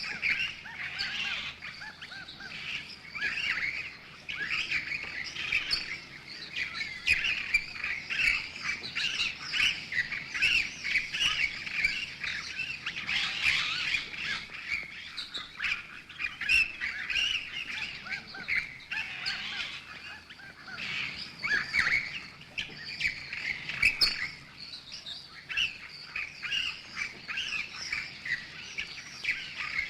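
A flock of birds squeaking and chirping at once, many short high calls overlapping in an unbroken chatter.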